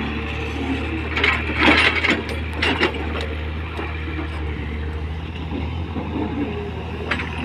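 Komatsu PC200 hydraulic excavator's diesel engine running steadily under load as it digs, with a few short bursts of scraping and clanking from the bucket and boom between about one and three seconds in.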